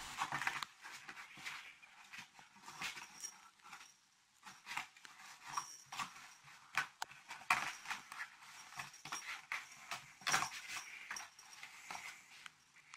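Faint, irregular taps and scratches as a kitten's paws bat at and scrabble around a small box.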